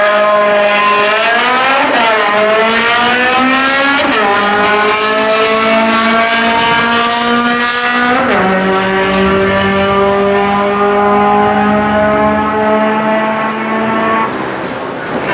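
Import hatchback's engine at full throttle on a quarter-mile drag run, climbing in pitch through the gears with three quick upshifts, about 2, 4 and 8 seconds in. It then falls away near the end as the run finishes.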